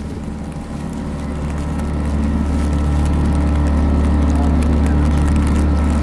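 A small boat's outboard motor running, getting louder over the first few seconds as it picks up speed, then holding a steady drone.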